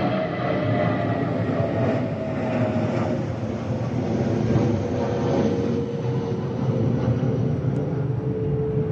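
Airbus A320-232 passing overhead, its underwing fuel-tank vent cavities (the FOPP) giving the A320's well-known whistle. It is a steady howling tone that slowly falls in pitch as the plane goes by, over the rumble of its IAE V2500 engines.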